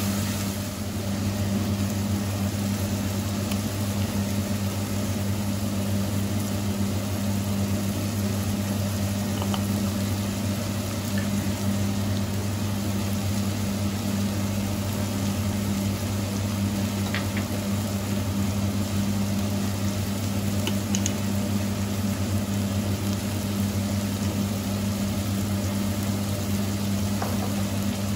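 Food sizzling steadily in a frying pan over a constant low electrical hum, with a few faint clicks.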